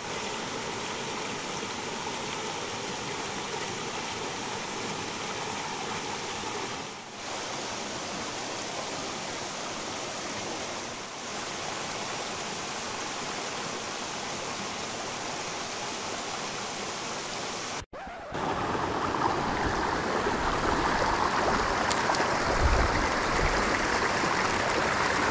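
Mountain stream flowing and splashing over boulders and small cascades, a steady rush of water. It gets louder about eighteen seconds in, with the water closer.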